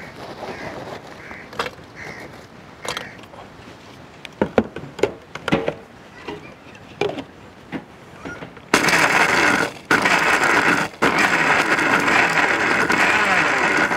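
Scattered clicks and knocks as a steel mixer-grinder jar is handled and set onto its base. About nine seconds in, the electric mixer grinder starts and runs loud, with two very short stops, grinding Oreo cookies into powder.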